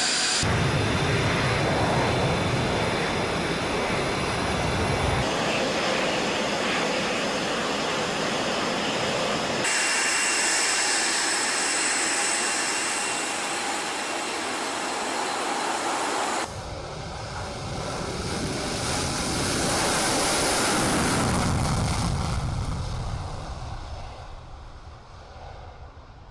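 F-22 Raptor's twin Pratt & Whitney F119 turbofans running, with a steady high turbine whine over the jet noise, in several abruptly cut clips. Near the end a jet swells and passes by, its pitch falling as it fades away.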